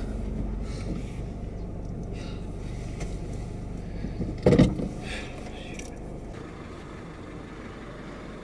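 Steady low rumble of a car's cabin on the move, with a single loud thump about halfway through; the rumble drops away shortly after.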